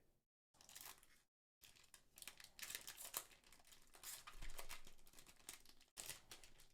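Faint crinkling and tearing of a foil trading card booster pack wrapper being opened, broken by two brief dead-silent gaps near the start.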